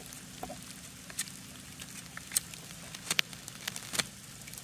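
Scandi-ground carving knife cutting into a wooden stick: a series of short, sharp clicks and snaps as the blade bites and shavings come away, about six in four seconds, the sharpest near the end. A faint steady low hum underlies them.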